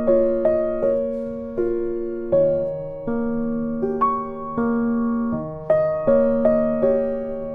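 Background music: a slow, gentle piano piece of single notes and soft chords, each struck and left to fade.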